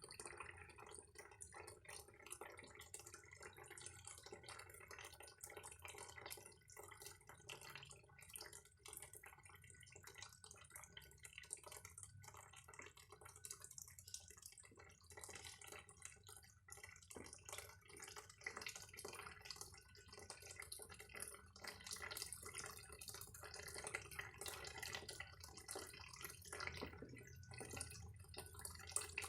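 Faint water dripping and trickling, with many small irregular drips and splashes close together.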